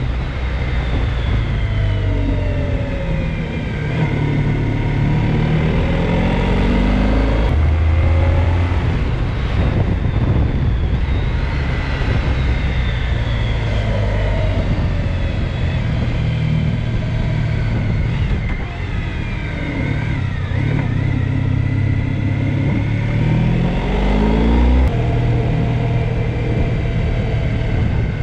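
Honda ST1300 Pan European's V4 engine pulling under acceleration, its pitch rising and then stepping down at gear changes several times, over heavy wind rush on the microphone.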